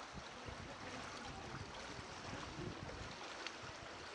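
Shin-deep floodwater sloshing and splashing around the legs of people wading through it, a steady wash of water noise with small scattered splashes.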